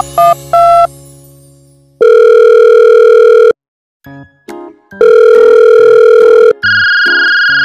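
Edited-in electronic tones: a quick run of musical notes dies away in the first second, then a loud steady synthesized tone sounds for about a second and a half, stops dead, and after a few short blips comes again just as long. Near the end a higher steady tone, like a telephone dial tone, follows.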